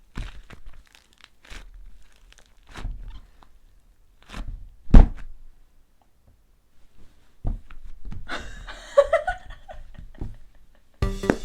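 Crumbly clay crackling and crunching as it is broken apart, in short scattered clicks, with one louder thump about five seconds in. A brief squeaky sliding sound follows after a pause.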